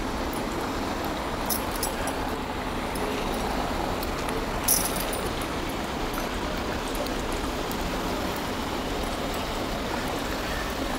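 Hot oil sizzling steadily as stuffed kachoris deep-fry in a pan, with a couple of light clicks from a metal slotted spatula, the sharper one near the middle.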